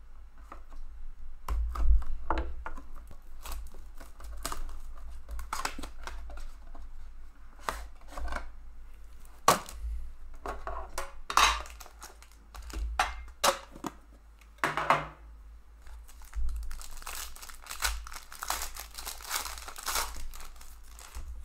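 Plastic shrink wrap being slit and torn off a boxed hockey card pack, then clear plastic wrapping crinkled and ripped off the cards inside. It comes as a string of short rips and crackles, densest near the end.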